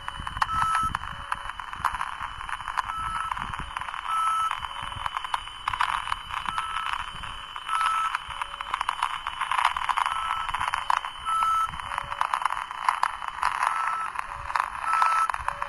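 Homebrew VLF superheterodyne pocket receiver's speaker playing a received VLF signal: short beeps at two pitches, a higher pair about every three and a half seconds with lower beeps between. They sound over crackling atmospheric static and a steady high whistle.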